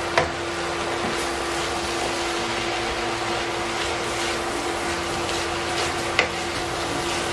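Kimchi and rice sizzling in a frying pan as a wooden spatula stirs and folds them, over a steady low hum. A sharp knock of the spatula against the pan comes just after the start and another about six seconds in.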